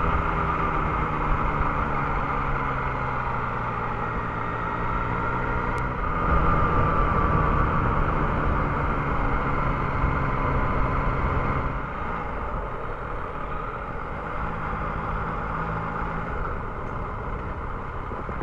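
Yamaha XSR 900's three-cylinder engine running steadily under way, with wind and road noise. It gets louder about six seconds in and drops back about twelve seconds in.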